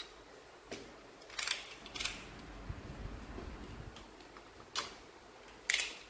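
About five sharp clicks and snaps at irregular intervals as small LED modules and their wiring are handled, pressed onto a metal panel and worked with small pliers.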